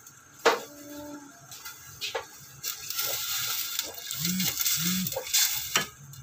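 Water poured from a cup into a stainless-steel pot of sautéed sardines, splashing steadily for about three seconds. A sharp knock comes about half a second in, and a click as the pouring ends.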